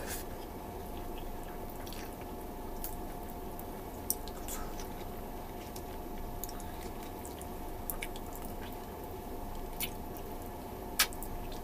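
Wet, squishy chewing and biting of balbakwa, a bony beef stew, eaten by hand, with a few sharp clicks, over a steady background hum.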